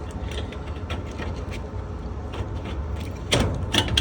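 Furnace blower running on low with a steady low hum while a furnace filter is pushed into its slot, the filter frame scraping and knocking against the metal housing about three seconds in.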